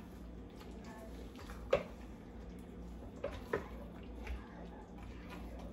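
Silicone spatula stirring beef and vegetables in an electric wok, with a few soft knocks of the spatula against the pan over a faint steady hiss.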